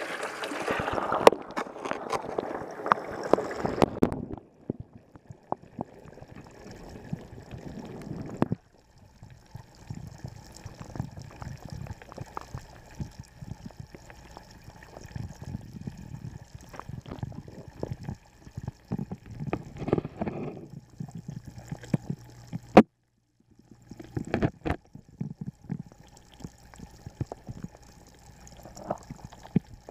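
Small pond waterfall splashing into the pond. It is heard plainly above the surface for the first few seconds, then muffled and bubbling from under the water, with scattered clicks and knocks. The sound cuts out briefly twice.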